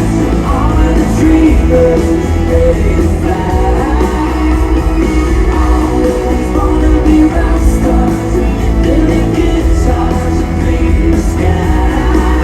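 A pop-rock song with a singing voice over a steady, heavy bass, playing loudly and evenly throughout.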